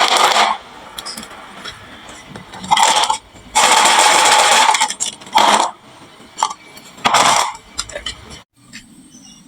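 Glass marbles rolling down a wooden marble run and clattering together, in several rushing runs of about a second each with scattered clicks between them.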